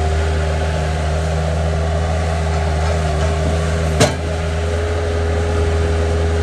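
Bobcat 773 skid steer loader's diesel engine running at a steady speed, with a constant whine over it. A single sharp clank about four seconds in.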